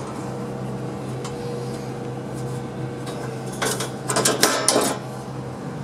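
Screwdriver turning the quarter-turn Dzus fasteners that hold a sheet-metal belt guard, giving a quick run of sharp metallic clicks and scrapes a little over three and a half seconds in. A steady low hum sits underneath.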